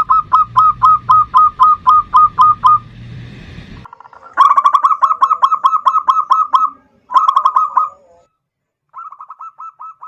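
Zebra dove (perkutut) singing: rapid runs of short, clipped cooing notes, about five a second, in four bursts, the last one fainter.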